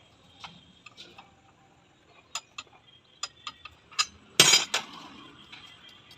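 Metal tool clinks and clicks as a spanner undoes the nut on a motorcycle rear shock absorber, with one louder clank about four and a half seconds in.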